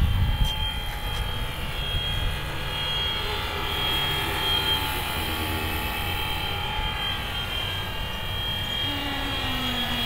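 Fly Wing Bell 206 V3 RC helicopter in flight, its brushless electric motor and rotor making a steady high whine over a low rumble. The pitch shifts a little as it manoeuvres.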